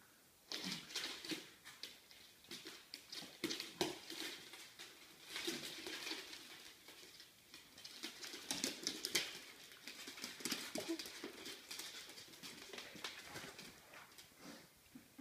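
Two West Highland White Terriers playing, their claws clicking and scrabbling on a hard floor in quick irregular runs of ticks as they wrestle and dash about.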